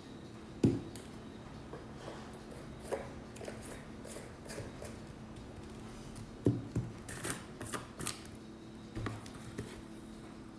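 Kitchen handling noises as spices are spooned into a stainless steel mixing bowl and glass spice jars are set down and opened. There is a sharp knock just under a second in, then scattered clicks and knocks, bunched together from about six to eight seconds in, over a faint steady hum.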